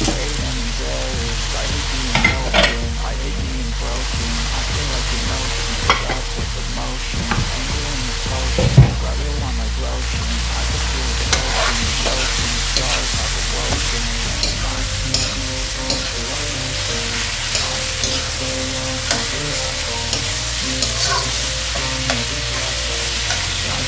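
Pork pieces sizzling as they fry in a nonstick wok, with a metal spoon stirring them and scraping and tapping against the pan. The loudest tap comes about nine seconds in.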